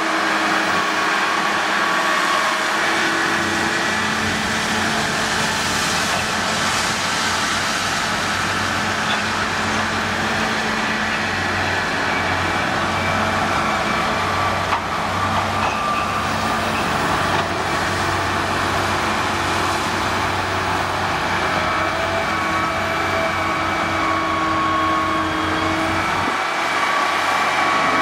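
Large crawler excavators, a Komatsu PC450 and a CAT 330C, running steadily while working gravel, their diesel engines and hydraulics giving a continuous mechanical noise with several steady tones in it.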